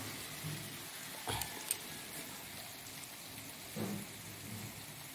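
Marinated chicken pieces sizzling in oil in a frying pan, a steady fine crackling hiss. A couple of sharp knocks come just over a second in, and a short dull thump near four seconds in.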